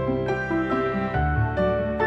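Soft background music: a gentle melody of held notes changing about every half second over a low bass line.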